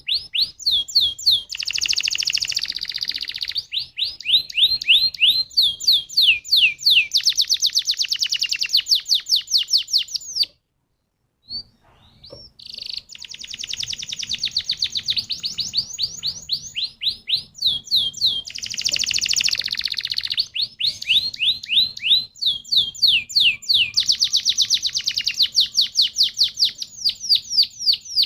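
Domestic canary singing long, rapid rolling trills of repeated chirping notes, with a short break about ten seconds in.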